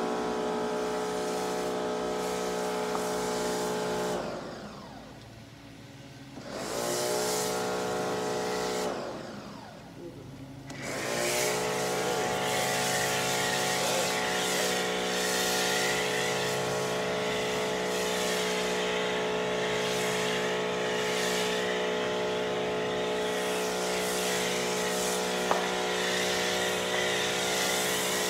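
Electric pressure washer running with a steady motor whine over the hiss of the water spray. About four seconds in and again about nine seconds in, the motor winds down and spins back up. After that it runs on, spraying snow foam through a foam cannon.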